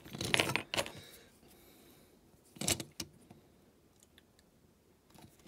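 Small die-cast metal toy parts clinking and rattling as they are handled and test-fitted together: a few clinks in the first second and another cluster just under three seconds in.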